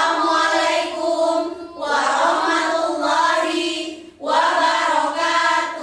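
Children's choir singing in three long held phrases with short breaks between them.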